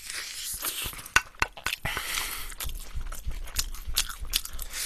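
A person biting and chewing sauced fried chicken close to the microphone: a string of irregular short crunches and wet mouth clicks.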